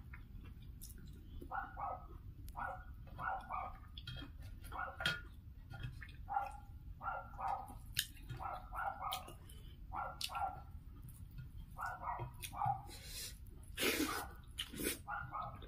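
A dog barking repeatedly in the background, short yaps often in pairs about every second. Close-up eating sounds from hand and mouth are heard over it, the loudest a little before the end as a mouthful goes in.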